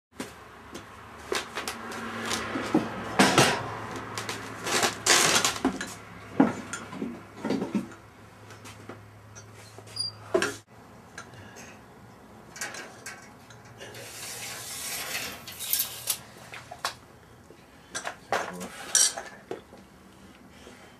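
Metal objects clinking and clattering in irregular sharp knocks, like tools and hardware being moved about and rummaged through, over a low steady hum that cuts off about halfway through.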